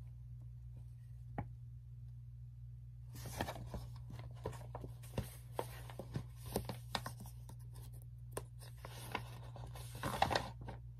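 Faint rustling and scattered light clicks of a paper storybook being handled as a page is turned, starting about three seconds in and busiest near the end, over a steady low hum.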